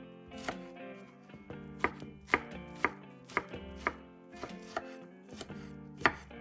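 Chef's knife slicing garlic cloves on a wooden cutting board: sharp knocks of the blade hitting the board, about two a second at an uneven pace, with soft music underneath.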